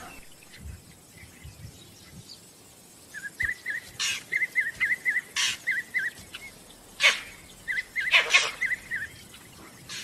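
Vervet monkey alarm calls: from about three seconds in, a quick run of short high chirps, several a second, broken by a few loud sharp calls. This is the vervet's alarm at predators nearby.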